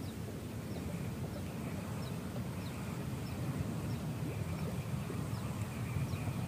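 Outdoor waterside ambience: a steady, rough low rumble with faint short chirps scattered through it.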